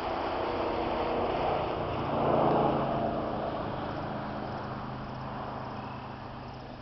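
A motor vehicle passing by, its engine hum and noise swelling to a peak about two and a half seconds in and then fading away.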